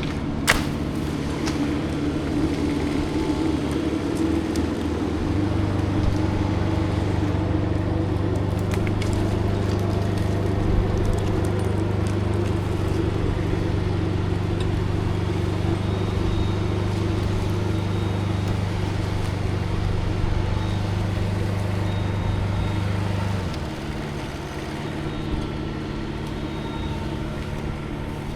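Steady engine hum, typical of the tracked aerial lift's engine. It gets louder and changes pitch about five seconds in, as if taking load, and eases back about five seconds before the end. A single sharp knock comes right at the start.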